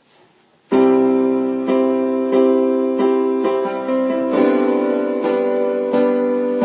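Instrumental piano intro to a song: after a moment of near silence, repeated chords are struck in a steady, unhurried rhythm, each ringing on until the next.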